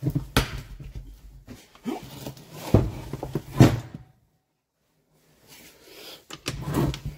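Mechanical clunks of a Malaguti scooter engine being turned over by its kick-start lever on the bench, several strokes, to test whether the engine is seized; it seems to compress. A second or so of dead silence falls in the middle.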